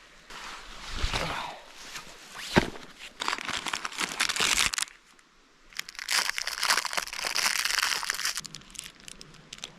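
Plastic food wrapper crinkling and tearing open, in two long spells of dense crackling, with a single sharp click a little before the first.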